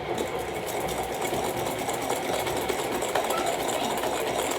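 Cake batter being mixed steadily in a bowl, a continuous busy churning with fine rapid clatter.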